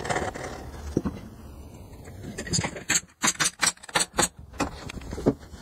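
Pneumatic brad nailer firing a quick run of sharp shots into pallet-wood shelf boards. The run starts a little before halfway and lasts about two seconds. A single light knock comes about a second in.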